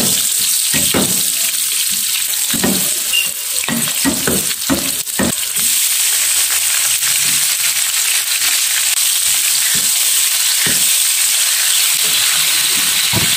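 Shallots, garlic and red chillies frying in hot oil in a pan: a steady, loud sizzle. A spatula stirs and knocks against the pan, often in the first five seconds and now and then after.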